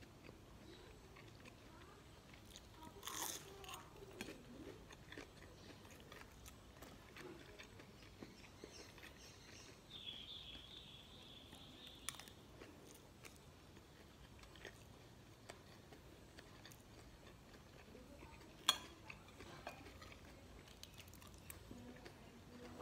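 Quiet eating sounds: faint chewing of fried rice and breaded chicken nuggets, with small clicks of a metal spoon and fork against a ceramic plate and one sharp clink late on.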